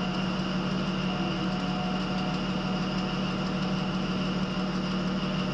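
Steady cab noise of a Class 43 HST power car under way: an even diesel drone with a constant low hum and a thin high whine above it.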